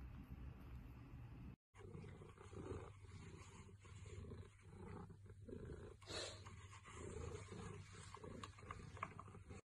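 A pixie-bob cat purring faintly in soft pulses, with the scratchy rustle of its face rubbing against a wall-mounted bristle groomer.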